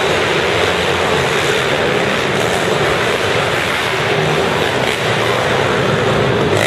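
Several small mini-motocross pit bike engines running and revving together on the track, blended into a steady, loud sound.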